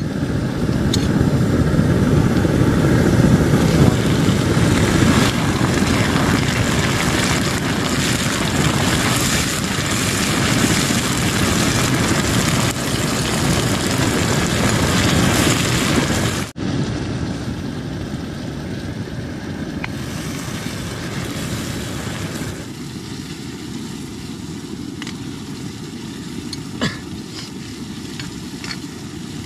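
Portable camping gas stove burning steadily under a steel kadai, with onions and tomatoes sizzling in oil. The noise drops out sharply about halfway through and goes on quieter, with one short click near the end.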